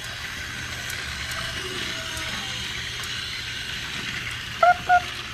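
Motorised toy train running on its track: a steady whirring and rattling. Near the end come two short high-pitched tones, each about a tenth of a second.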